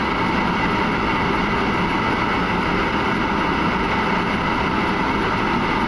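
Steady rushing flight-deck noise of an Airbus A300-600 on final approach with gear down and landing flaps set: slipstream and engine noise at an even level, with a few faint steady tones.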